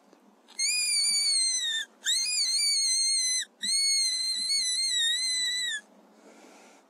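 A predator call sounding three long, high-pitched squeals, each wavering then dropping in pitch as it ends, with short breaks between them. These are calls to make a fox stop or come in.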